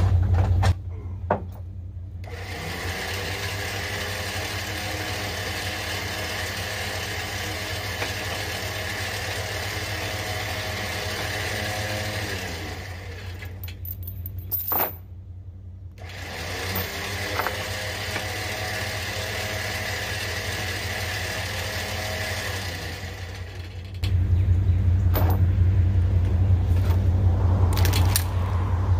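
An engine running steadily, dropping to a lower, quieter speed about a second in and picking up loud again about five seconds before the end, with a sharp clank around the middle.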